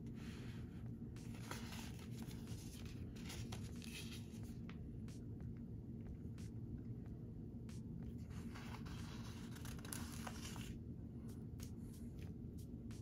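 Paper stickers being handled and peeled off their backing sheet: soft rustling and peeling in three spells, near the start, about two to four seconds in, and about eight to eleven seconds in, over a low steady hum.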